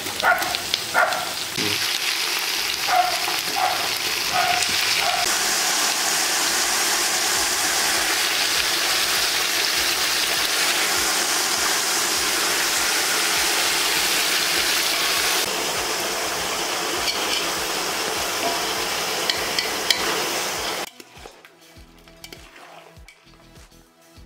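Washed raw mutton pieces hitting hot sesame oil with fried dried red chillies, garlic and shallots in a large pot: a few clatters as the meat goes in, then a loud, steady sizzle as it is stirred. Near the end the sizzle drops away suddenly to a much quieter level with a few faint clicks.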